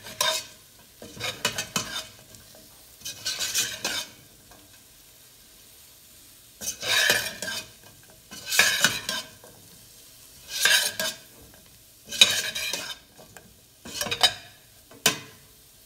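A slotted steel spoon stirring fried potato sticks and spices through hot oil in a stainless steel pot: about eight short scraping, sizzling strokes, with a longer pause a few seconds in.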